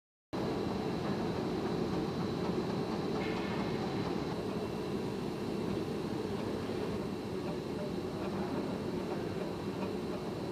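Steady industrial machine noise, a continuous low rumble with a thin high whine over it, cutting in abruptly just after the start.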